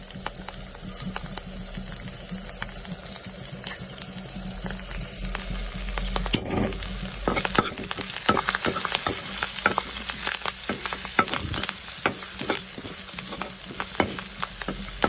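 Green chillies and curry leaves sizzling in hot oil in a pan while a spoon stirs and scrapes them. The sizzle grows louder about halfway through, with frequent scraping clicks from then on.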